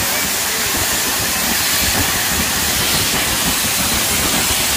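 Spinning wheels of a fireworks castle, driven by burning fountain fireworks, giving a steady, loud hiss with a rough crackle underneath.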